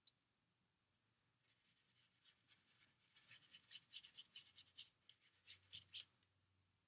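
Paintbrush bristles scrubbed in a dry watercolour pan to load paint: a faint run of quick scratchy strokes, several a second, from about a second and a half in until about six seconds in.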